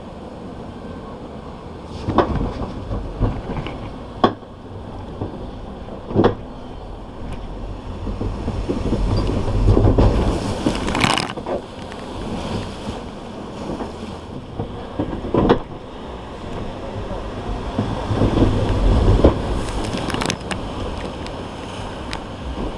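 Log flume boat running along its water channel: a steady low rumble with scattered knocks and clunks, and a brief rush of noise about eleven seconds in.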